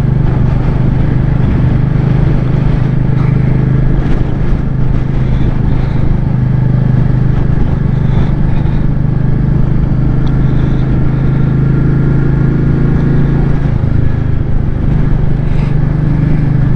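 Royal Enfield Meteor 350's single-cylinder engine running steadily under way, with a brief dip in the engine note late on.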